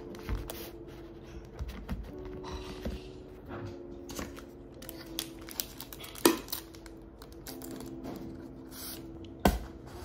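Soft background music with handling sounds of a plastic drink cup: rustling and light taps, with two sharp knocks about six and nine and a half seconds in.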